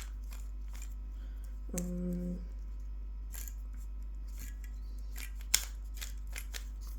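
Rubik's cube being turned by hand: the plastic layers click and clack in quick, irregular turns, with one sharper click about five and a half seconds in. A short hummed "mm" comes about two seconds in.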